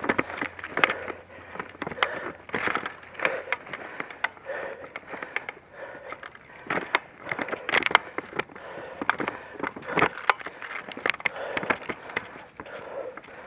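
Footsteps moving through dry undergrowth, with irregular crunches and sharp snapping cracks of twigs and brush.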